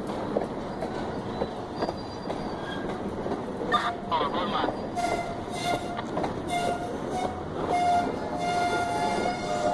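Covered hopper freight cars rolling slowly past on the rails: a steady rumble of wheels with scattered clicks and knocks. From about four seconds in, the wheels squeal in on-and-off high tones.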